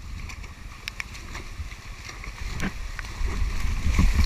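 Twigs and branches snapping and scraping, with steps squelching in wet mud, over a low rumble of wind and handling noise on the helmet-mounted camera's microphone that grows louder about three seconds in.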